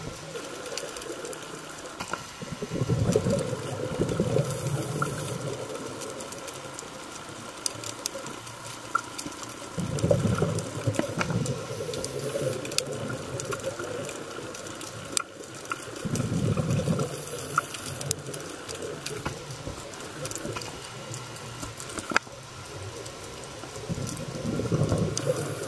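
Scuba diver's exhaled breath bubbling out of the regulator underwater: a rush of bubbles every six to eight seconds, four times, with quieter stretches of faint clicking in between.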